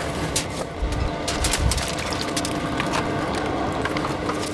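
Metal grease tray of a Weber SmokeFire pellet grill being pulled out and emptied: irregular scrapes, clicks and knocks of metal on metal, with a few low thumps about a second in, as grease is tipped into an aluminium foil pan. A steady low hum runs underneath.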